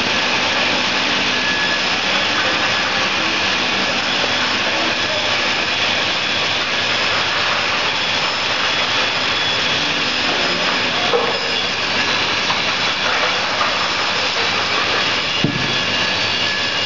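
Four-head horizontal lath slicing machine (multi-saw resaw) running, its saw blades and motors making a steady, loud whine with several high tones held throughout, as a board is fed in by the spiked feed roller. A single sharp knock sounds near the end.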